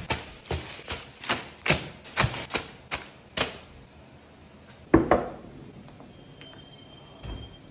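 Packaged groceries (plastic-wrapped meat and frozen chicken) set down one after another on a table, a quick run of thuds and plastic slaps about three a second that stops about three and a half seconds in. One louder thump follows about five seconds in.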